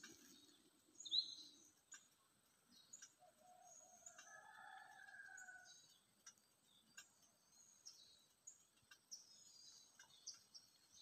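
Near silence with faint birds chirping: scattered short high tweets, one sharper chirp about a second in, and a longer, lower call between about three and six seconds.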